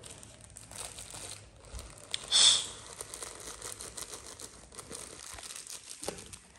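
Thin plastic bag crinkling and rustling in the hands as it is opened and emptied into a bowl, with one louder, sharper crackle a little over two seconds in.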